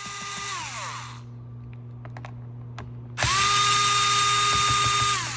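Cordless drill-driver turning the screws of a speaker-grille trim ring. Its motor runs with a steady whine that winds down in falling pitch about a second in, followed by a few small clicks. A second run of about two seconds starts about three seconds in and winds down near the end.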